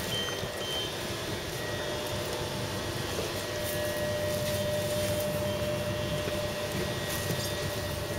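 Train door warning beeps, short and repeated, stopping within the first second. Then the steady running hum of the standing train with a steady tone.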